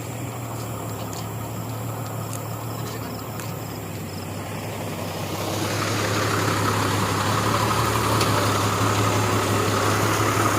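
Engine running steadily with a low hum, growing louder about halfway through.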